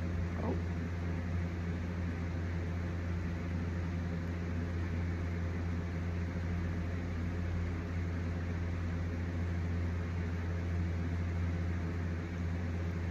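A steady low hum from a running motor, with an even hiss over it, unchanging throughout.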